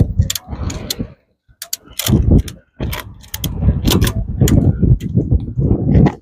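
Ratchet clicking in irregular runs as a tie-down strap is cranked tight, over a heavy low rumble of wind buffeting the microphone.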